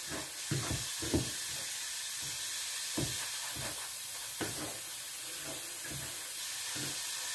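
Hands rubbing and tossing oiled dry couscous grains in a wooden bowl: a soft grainy rustle in irregular strokes, over a steady background hiss.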